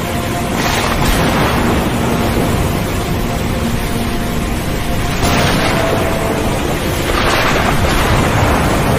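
Storm-at-sea ambience: a constant rumbling wash of noise with three swells of rushing, crashing noise, about half a second, five seconds and seven seconds in, each fading over a second or so. A few faint steady tones run underneath.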